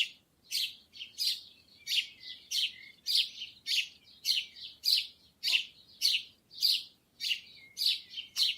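A bird chirping over and over in short, high, evenly spaced calls, a little under two a second.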